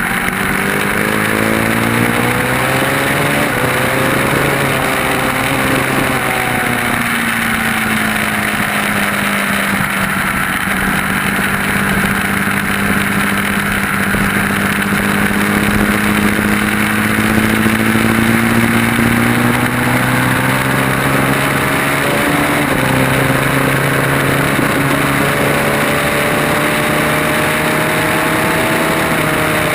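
Onboard sound of a motorcycle on a race track: the engine's pitch climbs as it pulls through the gears and drops each time it shifts or slows for a corner, a few times over, with a steady rush of wind throughout.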